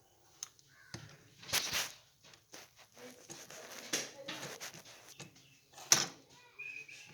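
Scattered clicks and knocks from handling a phone and small tools on a bench. The loudest comes about six seconds in.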